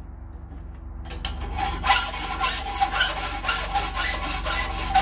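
Flat hand file rasping back and forth across the cast seam of a black iron pipe tee clamped in a vise, filing it down to a flat spot where a drill bit can start. The strokes begin about a second in and go in a steady rhythm.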